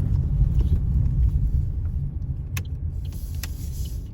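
A car's steady low road and engine rumble while driving.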